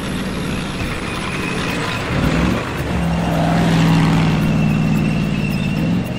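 Vehicle engine sound effect: a motor hum that rises in pitch about two seconds in, holds steady, then drops away near the end.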